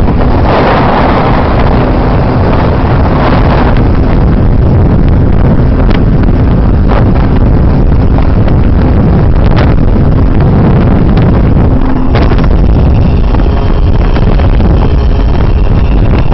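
Motorcycle riding at road speed: heavy wind rush on the microphone over the steady drone of the engine.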